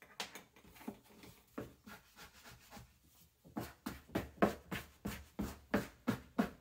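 Dough scraper scraping across a floured wooden work surface in short strokes, scattered at first, then a quicker run of about three strokes a second in the second half.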